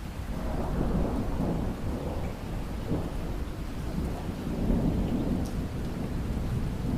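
Steady rain with a low rumble of thunder that swells about half a second in and rolls on through the rest.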